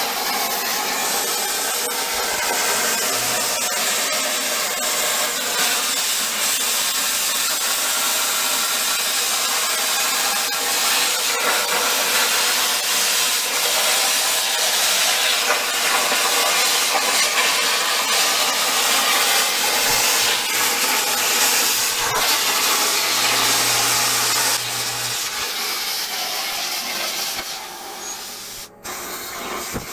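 CNC plasma torch cutting steel plate: a loud, steady hiss of the plasma arc and its air stream. About 25 seconds in, the cut ends and the hiss drops to a quieter sound.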